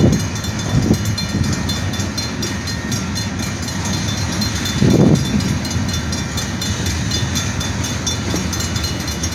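Freight train rolling slowly past at a grade crossing: a steady rumble of railcars on the rails, with a louder swell about five seconds in. The train is slowing toward a stop.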